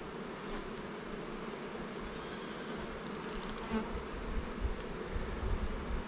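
Honey bees buzzing around an open hive, a steady dense hum, the colony stirred up after frames full of bees fell to the ground. From about four seconds in, irregular low rumbles come in under the buzzing.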